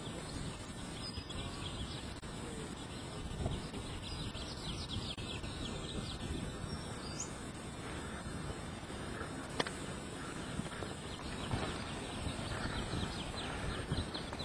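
Steady outdoor noise in a forest, with a few faint bird chirps and one sharp click about two-thirds of the way through.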